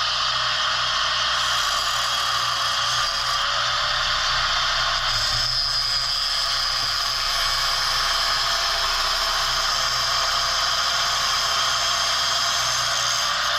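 Welding arc hissing and crackling steadily as a bead is run on the cart's steel plate, with a faint steady hum under it.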